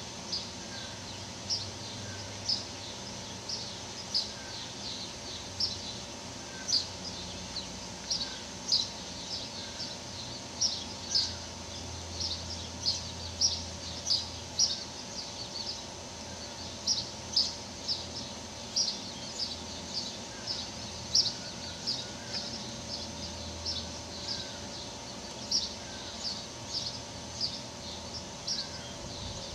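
Small birds chirping, short high chirps repeating about one to two times a second, on and on without a break.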